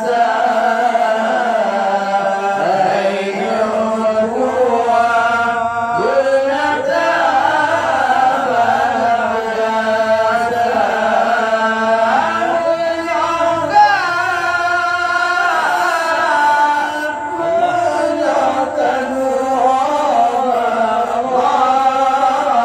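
A man's voice singing an Acehnese qasidah, an Islamic devotional song, into a microphone. The singing runs in long, held, ornamented lines that glide between notes.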